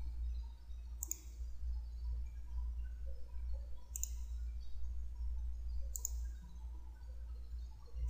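Computer mouse clicking three separate times, about a second in, four seconds in and six seconds in, over a steady low electrical hum.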